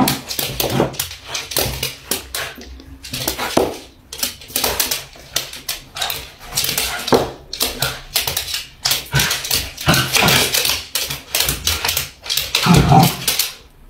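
A dog and a cat play-fighting on a wooden floor: rapid scuffling and clicking of claws on the boards. There are short dog vocalizations at the start and again near the end.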